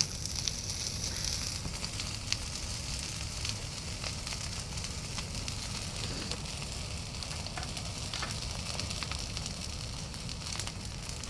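Open fire burning with a steady hiss and scattered crackles and pops, the hiss strongest in the first second or so.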